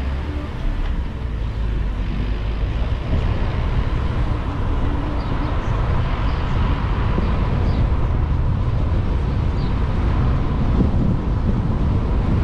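A car driving along a road, giving a steady, loud rumble of engine, tyre and wind noise with no change in pace.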